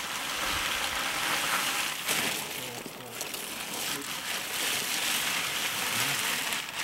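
A large plastic sheet rustling and crinkling as it is rubbed and dragged over a horse's back and legs, in irregular bursts.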